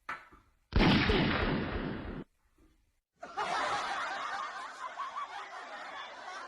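Laughter in two stretches, each cut off abruptly: a loud one about a second in, then a longer, quieter one.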